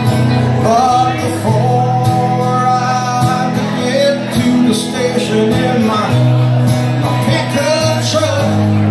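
Live country music from a guitar duo: a solid-body electric guitar and a strummed acoustic-electric guitar play together, with a melody line that slides and bends over the chords.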